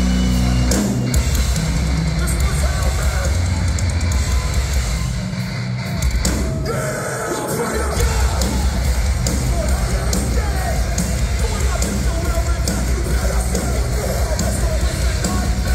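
A hardcore band playing live in a concert hall, heard from within the crowd: heavy distorted guitars, bass and drums with shouting. A low droning intro cuts off about a second in, and the heavy low end drops out briefly around the middle before the full band comes back in.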